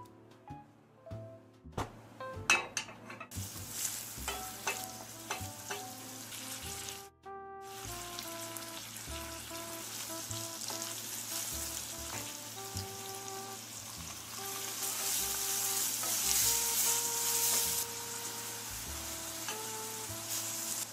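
Bacon and minced garlic sizzling in hot oil in a stainless steel pan and stirred with a wooden spatula, after a few sharp clicks about two seconds in; the sizzle grows louder past the middle. Soft background music plays under it.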